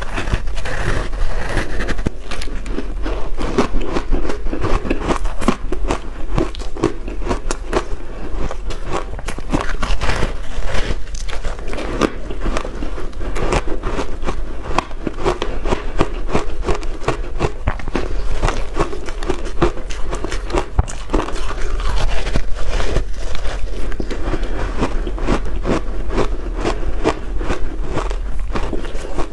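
Close-miked biting and chewing of shaved ice coated in matcha powder: dense, continuous crunching and crackling.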